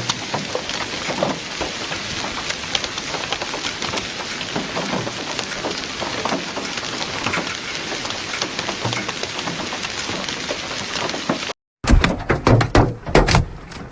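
Hail and heavy rain pelting down, a dense hiss full of sharp clicks and taps from hailstones striking surfaces. After a short break near the end, a second recording with louder, sparser knocks of hailstones hitting hard surfaces.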